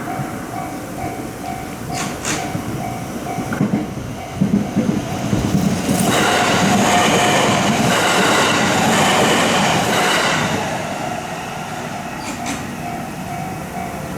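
Japanese level-crossing warning bell clanging in a steady repeating rhythm, then an electric train passing the crossing: the rumble and rattle of the cars build about four seconds in, are loudest for several seconds, and fade near the end, with the bell still faintly heard.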